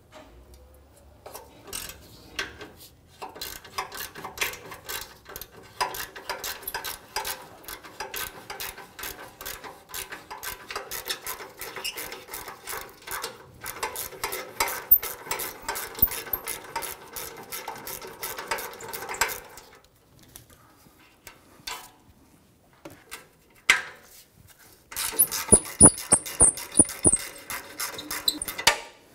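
Ratchet wrench clicking rapidly as it spins the exhaust flange bolts out behind the rear catalytic converter. There is a long run of clicking, a pause about twenty seconds in, then another quick run near the end.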